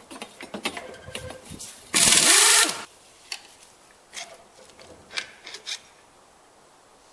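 A short burst from an air tool, about two seconds in, rising and falling in pitch as it spins out a crankshaft main bearing cap bolt on a Jeep 4.0 inline-six block. Light metal clinks of bolts and tools come before and after it.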